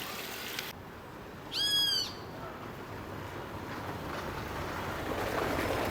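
A single short whistled call, like a bird's: one clear arching tone about half a second long, about one and a half seconds in. A steady background hiss rises slowly towards the end.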